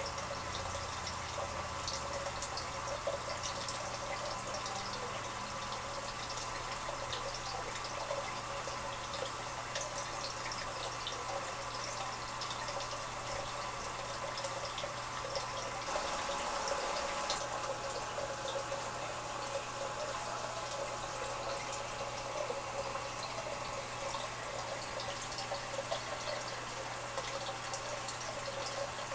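Aquarium water noise: a steady trickling and bubbling with small ticks, over a steady low hum.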